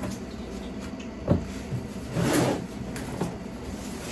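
A cardboard package being handled during unboxing: a single knock about a second in, then a short scraping rustle about halfway through.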